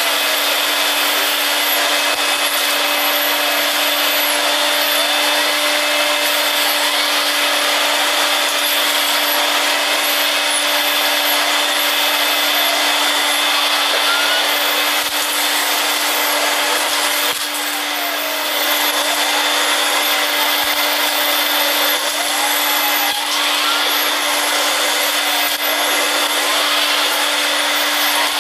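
Eureka bagless upright vacuum cleaner running steadily through its hose and wand, a constant motor hum with a high whine, while shredded paper rattles up the hose. The note dips briefly about two-thirds of the way through.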